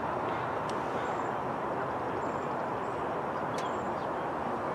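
Steady outdoor background noise with two short sharp knocks about three seconds apart.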